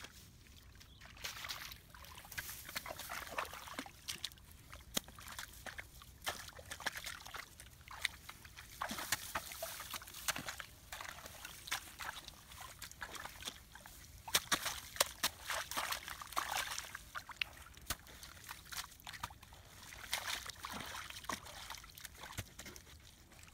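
Shallow muddy water sloshing and splashing irregularly as it is scooped and stirred by hand and with a hoe, with many short wet slaps.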